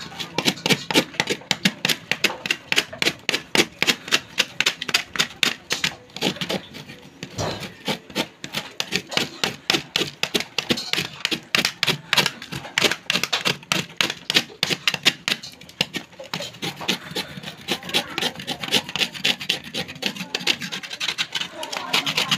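Bolo knife blade scraping loose coir fibres off a husked coconut in quick repeated strokes, several a second, with a couple of brief pauses.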